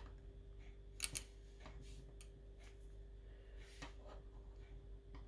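Small plastic Lego pieces being handled and clicked into place. There are two sharp clicks about a second in, then a few fainter taps.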